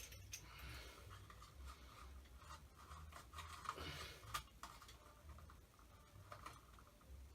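Faint handling noises of electrical wires being joined with twist-on wire nuts: rubbing and scraping with a few small clicks, the sharpest a little under halfway through.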